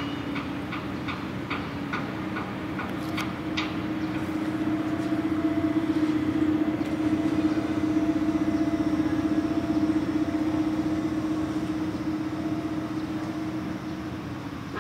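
Wheel loader's diesel engine running and working up in the middle, with a steady low hum, then easing off near the end. A run of short sharp clicks and clanks sounds in the first few seconds.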